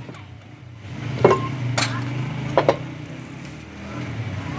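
A few sharp knocks or clinks, spaced irregularly, over a steady low hum.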